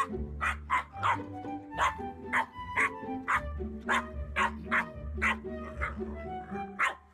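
Background music with steady notes and bass, over a run of short, sharp yelps or squeaks, about two a second, from a boxer puppy playing with a squeaky pig toy. The short sounds stop shortly before the end.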